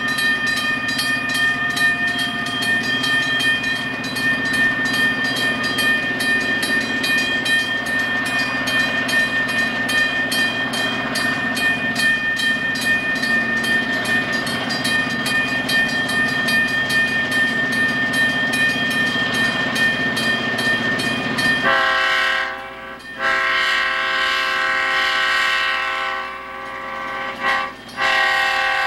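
Diesel freight locomotives working a train past at close range: a rapid, even pulsing with a steady high-pitched whine over it. About 22 s in, the locomotive's multi-chime air horn blows several long blasts with short breaks, blowing for a grade crossing.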